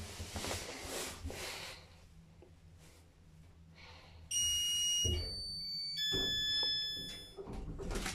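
Lift car's electronic arrival chime: three steady beeping tones in turn, the second higher and the third lower, starting about halfway through. Near the end the car doors begin to slide open.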